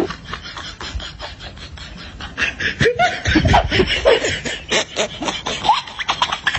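Human laughter in quick, choppy bursts, getting louder about two and a half seconds in.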